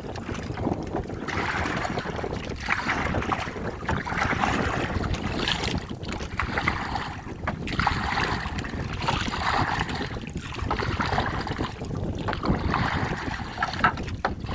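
Water sloshing and splashing against a small boat, in swells every second or two, over a steady low rumble of wind on the microphone.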